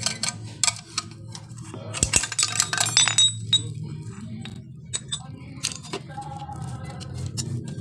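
Screwdriver clinking and scraping against the metal end housing of a spin-dryer motor while its screws are worked loose: a string of sharp metallic clinks, thickest in a quick run of ringing clinks about two to three seconds in, over a low steady hum.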